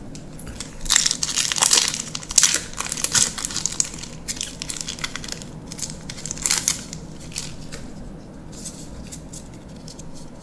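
Foil wrapper of a Magic: The Gathering booster pack crinkling and tearing as it is ripped open by hand, loudest in the first few seconds with another burst about halfway through, then lighter rustling as the cards are handled.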